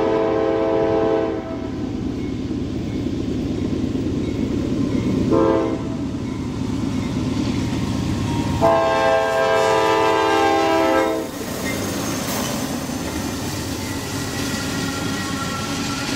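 Norfolk Southern diesel freight locomotive's air horn sounding for a grade crossing. One blast cuts off about a second in, a short blast comes around five seconds, and a long blast runs from about nine to eleven seconds, the close of the long-long-short-long crossing signal. After that the locomotives' engine rumble and wheel noise build as the train passes close by.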